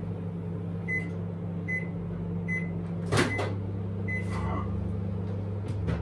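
Panasonic microwave oven running with a steady hum, heating butter in a mug. About a second in it gives five short high beeps, evenly spaced, the last one longer, marking the end of the heating time. There is a sharp click partway through and another just at the end as the door is opened.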